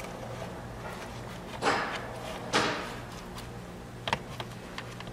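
A cloth rag being pushed into a plastic dashboard gauge housing: two short rustling scrapes about two seconds in, then a few light plastic clicks near the end.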